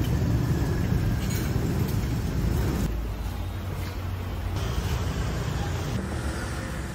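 Street traffic noise: a steady low rumble of passing vehicles, a little quieter from about three seconds in.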